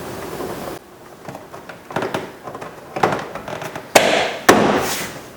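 Plastic interior door trim panel being pressed onto the door so its retaining clips pop into place: a series of sharp knocks, the loudest two about four seconds in, half a second apart.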